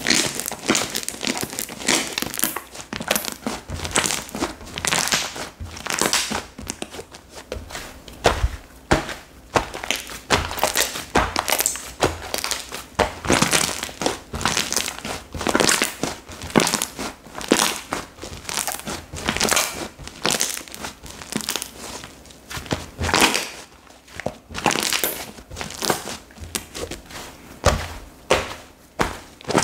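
Cocomo slime being squished and kneaded by hand, with a continuous run of irregular crackling pops and clicks.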